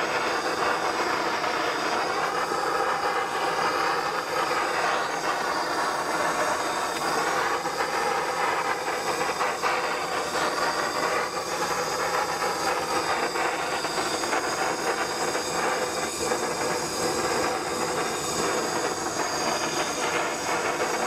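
Handheld gas torch with a wire-caged diffuser head burning steadily as it is played over tortillas on a griddle: a constant hissing rush of flame.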